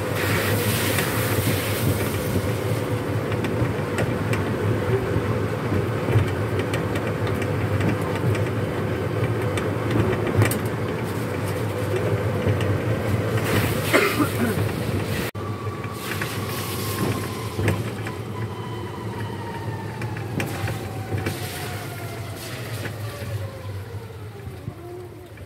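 Open electric shuttle cart driving along, its motor humming with a steady whine under wind buffeting the microphone. In the second half the motor whine falls slowly and steadily in pitch as the cart slows down.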